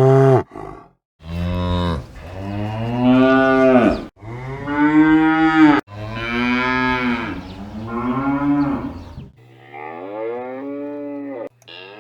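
A cow mooing: a series of long, drawn-out moos one after another, the last one near the end quieter.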